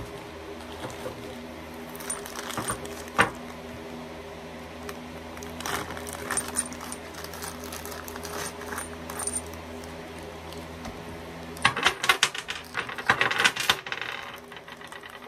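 Lift-kit parts being rummaged and handled in their box: scattered clicks and knocks, then a dense flurry of rattling clinks about twelve seconds in.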